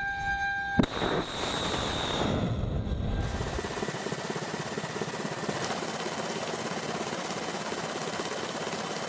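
A steady high whine cuts off with a sharp blast a little under a second in, as a missile fires from a warship's launcher. A rushing roar follows, with a tone that falls in pitch over the next two seconds, then settles into a steady rushing noise.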